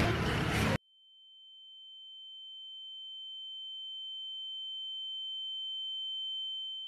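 A single steady, high-pitched electronic tone, like a test tone or an ear-ringing effect, that comes in about a second in and slowly grows louder. A short burst of loud noise comes just before it.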